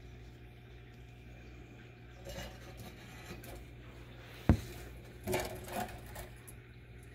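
A red-eared slider's shell and claws knocking and scraping on a plastic egg-crate basking grid as it crawls: one sharp click about four and a half seconds in, then two short clattering scrapes, over a low steady hum.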